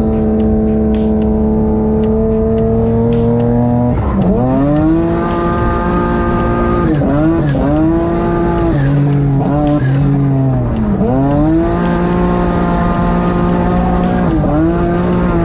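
A car engine revving hard under load. Its pitch climbs steadily, drops sharply about four seconds in, then rises and falls several more times as the throttle is worked, typical of a car being driven hard on a track.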